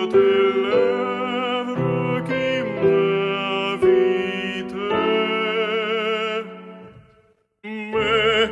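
Classical tenor singing with wide vibrato over piano accompaniment, in an art song. About seven seconds in, the music fades to a brief silence, then starts again.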